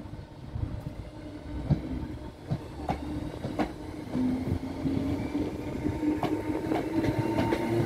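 Royal Mail Class 325 electric multiple unit running past, its wheels clicking irregularly over rail joints over a low rumble that grows louder as it nears. A steady hum joins about four seconds in.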